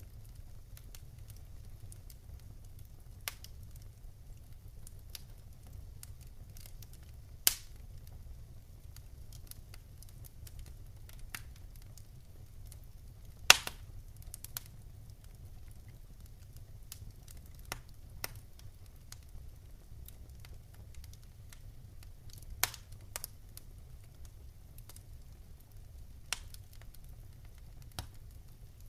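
Wood fire crackling: scattered, irregular sharp pops and snaps, two of them louder (about seven and thirteen seconds in), over a low steady rumble.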